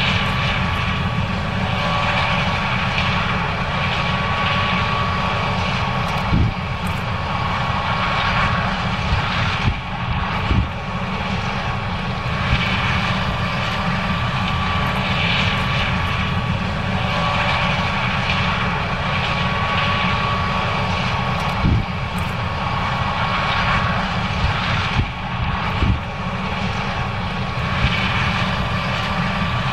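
John Deere S790 combine harvester running steadily while harvesting corn: a constant engine and machinery drone with a steady whine. A few short knocks come through the drone, about four times.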